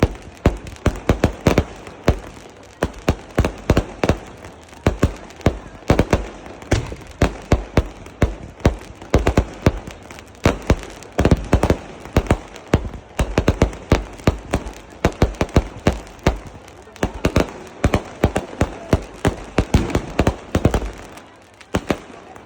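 Fireworks going off in rapid, irregular succession: many sharp bangs and pops, several a second, with no let-up.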